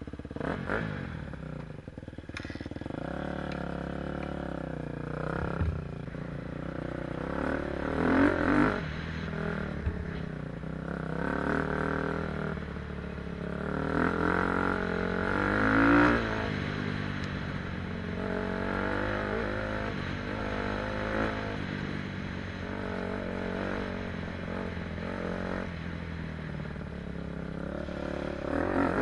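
KTM 250 SX-F motocross bike's single-cylinder four-stroke engine under way, revving up and down as it is ridden. The loudest revs come about eight and sixteen seconds in.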